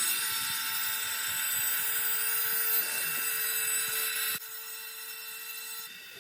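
DIY CNC router running, its spindle giving a steady high-pitched whine with many overtones over a hiss. About four seconds in the sound drops in level and the hiss thins while the whine holds steady.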